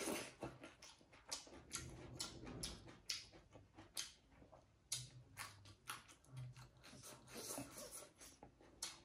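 Close-up chewing of rice and fatty pork: irregular wet mouth smacks and clicks, a few a second.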